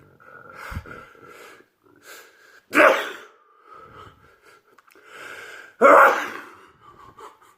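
A person sneezing loudly twice, about three seconds apart, each sneeze preceded by gasping, drawn-out in-breaths as it builds up.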